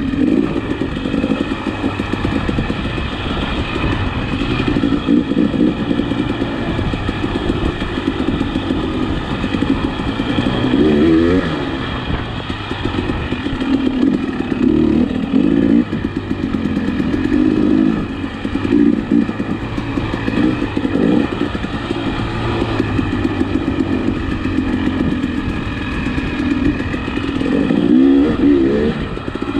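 A 2021 KTM 300 XC-W's single-cylinder two-stroke engine being ridden, its pitch rising and falling again and again as the throttle opens and closes.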